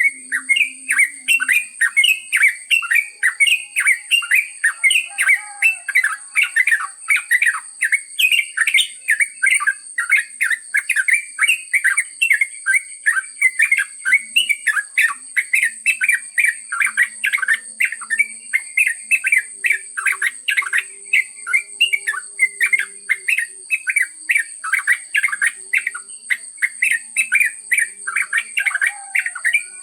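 Yellow-vented bulbul (trucuk) singing a long, unbroken run of quick chirping notes, about three or four a second, the continuous 'ngropel' song.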